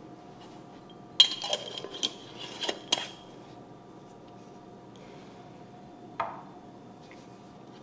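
Kitchenware clinking: a quick run of sharp, ringing clinks over about two seconds, then a single clink a few seconds later, over a faint steady hum.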